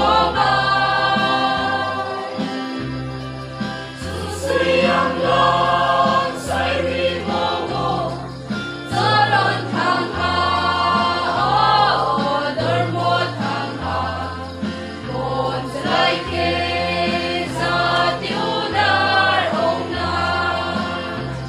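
A mixed choir of young men and women singing a Christian song together, over low held accompaniment notes that change about every second.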